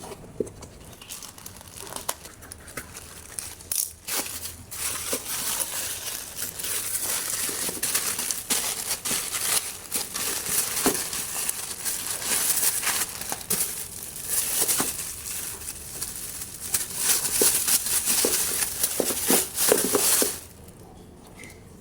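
Packaging being crinkled and rustled as a pair of shoes is unwrapped: a dense, crackly rustle with many small snaps. It grows loud a few seconds in and stops abruptly near the end.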